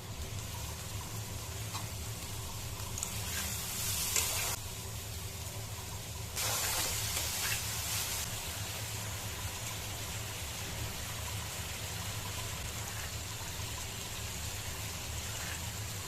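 Rice frying in a hot pan, a steady sizzle that grows louder twice as it is stirred, over a low steady hum.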